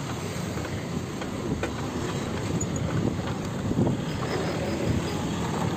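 Steady street traffic and road noise heard while riding along a town road, getting gradually louder, with motor vehicles passing.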